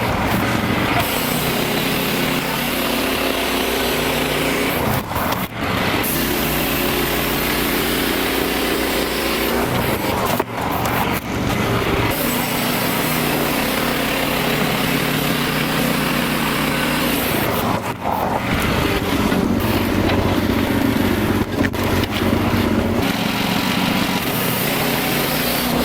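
Wood-Mizer LX55 portable band sawmill running, its engine working steadily as the band blade cuts a white pine log. The engine note shifts a little from time to time, with a few brief drops in level.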